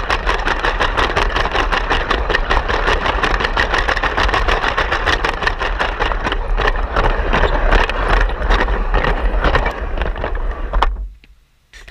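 A Lego train running on plastic track, heard from a camera riding on it: its electric motor whirs and its plastic wheels clatter rapidly over the track joints. The sound cuts off suddenly about eleven seconds in.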